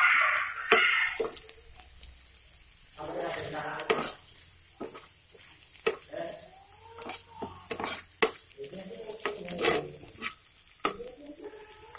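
Chopped onions frying in oil in a pan, with a steady sizzle. A spatula stirs and scrapes them, tapping and clicking against the pan again and again.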